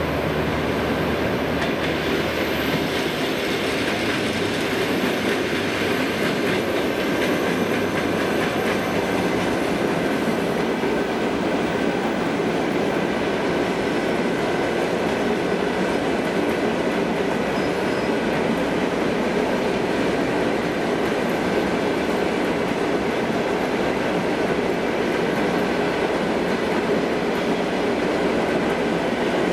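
EP2D electric multiple unit running past at close range: the steady rolling noise of its wheels on the rails.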